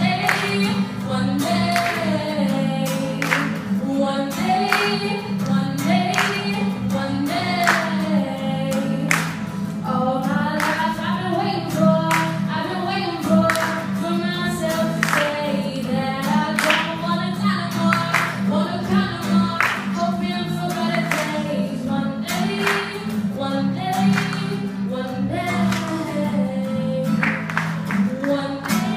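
A young woman singing a slow melody into a microphone, accompanied by an acoustic guitar.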